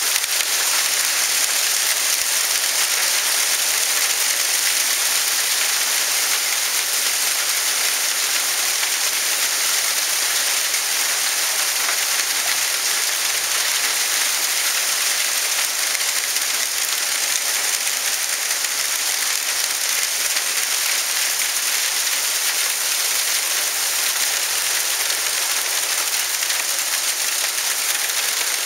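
Hail and heavy rain pelting the ground: a dense, steady hiss.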